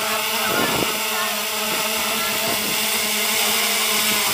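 3DR Solo quadcopter's electric motors and propellers running with a steady, even whine as it comes in to land, with a couple of faint knocks about half a second in.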